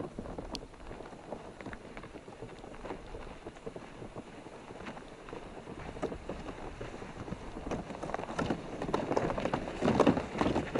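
Boots crunching through snow in steady footsteps, with a plastic sled dragging behind. The sound grows louder as the walker comes closer.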